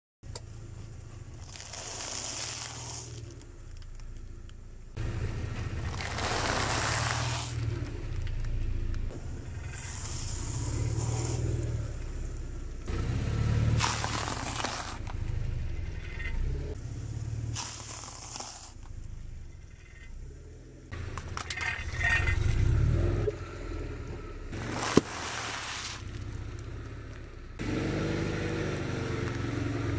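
A car rolling over objects and crushing them: several separate bouts of crackling and scraping over a steady low engine and tyre rumble, with one sharp crack late on.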